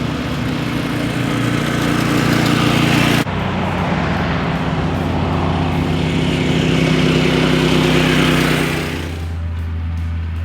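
Mini bike's Predator 212 single-cylinder four-stroke engine running while riding, its pitch shifting with the throttle. There is an abrupt break about three seconds in. Near the end the engine note gives way to a steadier low hum.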